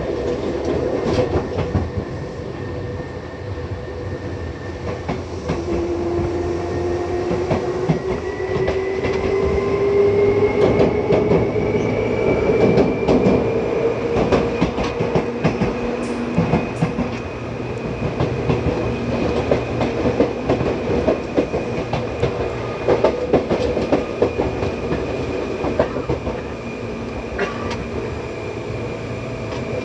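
Seibu 2000 series electric train running, heard from inside the car. A whine rises in pitch from about five seconds in as the train gathers speed, then holds steady over the rumble, with wheels clacking over rail joints.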